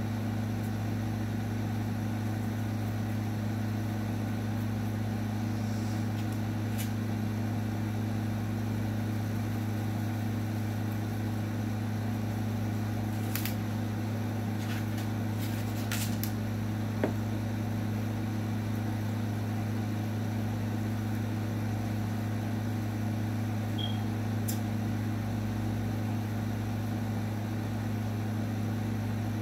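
A steady low motor hum, with a few short clicks around the middle from grooming scissors snipping at a dog's coat.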